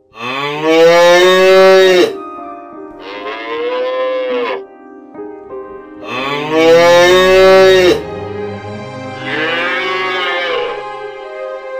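Cattle mooing: four long moos about three seconds apart, each rising and then falling in pitch.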